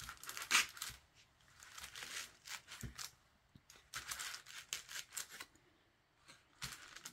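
Light, scattered scrapes and rustles of hands handling a Styrofoam block on a paper sheet, working a wooden popsicle stick straight in the foam.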